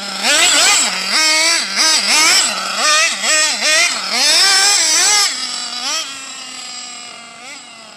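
Nitro RC car's small glow-fuel two-stroke engine with an aluminum pipe, revving up and down in quick repeated blips as the car is driven. About five seconds in it drops back to a steadier, lower and quieter note.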